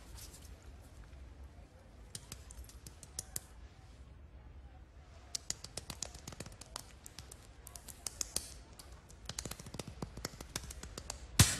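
Hands slapping and patting a bald scalp in quick runs of light smacks, with one louder smack near the end. This is a treatment meant to restore circulation to the scalp.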